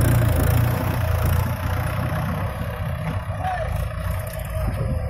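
Mahindra 585 DI tractor's diesel engine running steadily at idle, a little louder for the first second or so and then settling.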